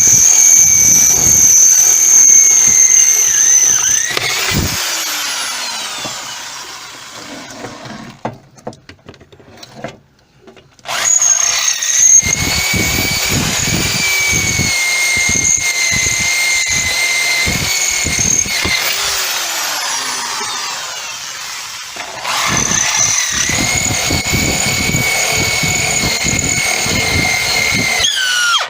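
Electric drill with a 5/16 metal bit drilling out the rivets on a washing machine transmission. Its motor runs with a high whine in three spells, slowing down and stopping between them, and cuts off near the end.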